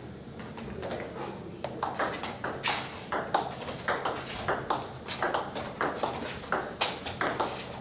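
Table tennis rally: a celluloid/plastic ball clicking off the bats and the table, a quick run of sharp clicks about three a second, starting about a second and a half in.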